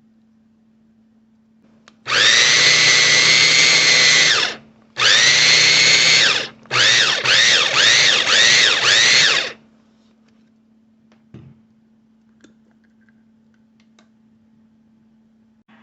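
Motor of a Wancle 350 W electric food chopper running: one run of about two seconds, a shorter run, then quick pulses about two a second, each starting with a rising whine as the blade spins up.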